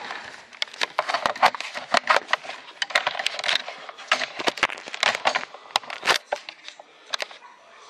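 Small hard objects on a cluttered workbench being handled, clicking and clattering irregularly several times a second, thinning out about seven seconds in.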